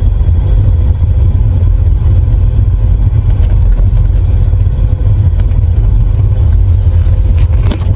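Steady low rumble of a 1986 Volvo 745's B230F four-cylinder engine and road noise, heard from inside the moving car, with a sharp click just before the end.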